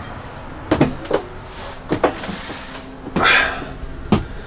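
A string of short clunks and knocks from a motorhome's door and interior fittings being handled while someone climbs in, with a breathy rustle about three seconds in.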